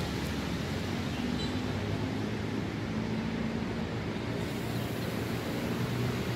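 Diesel city bus engine running steadily at low speed, a continuous low hum over an even rush of noise.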